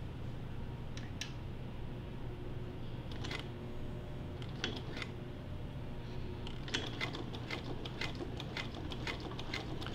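1952 Singer 301 sewing machine being started slowly by hand and knee control. A few scattered clicks give way, from about seven seconds in, to slow sewing with a steady ticking about three stitches a second.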